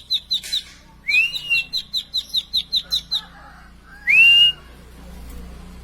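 Plain prinia singing: fast runs of short, high repeated notes, about five a second, in two bursts, with two rising whistled upslurs, the second, about four seconds in, the loudest.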